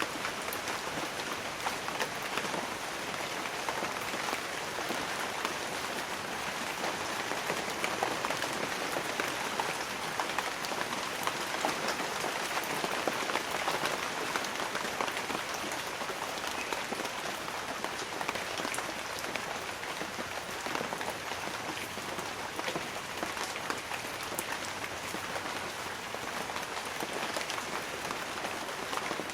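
Light rain falling on banana leaves: a steady patter of many small drops.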